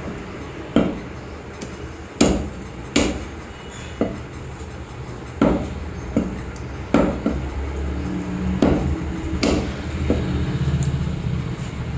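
Meat cleaver chopping raw chicken on a thick wooden log chopping block: about ten heavy chops at an uneven pace.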